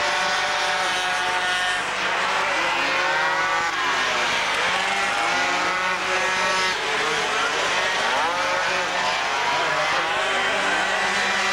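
Several 50 cc two-stroke racing scooters racing past at full throttle. Their high engine notes rise and fall and overlap as riders brake and accelerate through the turns.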